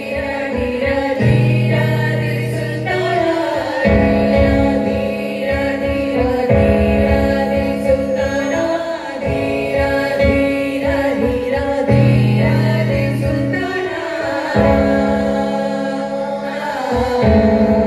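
A group of mostly female voices singing a Bollywood song together over amplified electronic keyboard accompaniment, with sustained bass notes and a steady beat.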